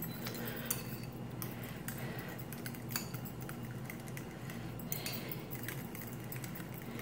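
A metal utensil stirring a mashed-banana mixture in a ceramic bowl, with irregular light clinks against the bowl and the jingle of metal bangles on the stirring wrist.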